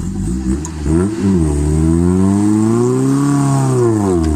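Off-road vehicle's engine revving hard under load. It comes in suddenly, climbs in pitch for about two seconds, then drops back near the end.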